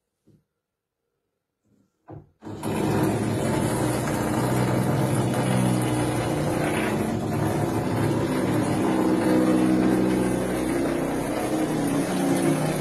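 Neighbour's power drill running steadily and loudly, the daily drilling noise coming through from the next flat. It starts abruptly about two and a half seconds in, after near silence with a couple of faint clicks.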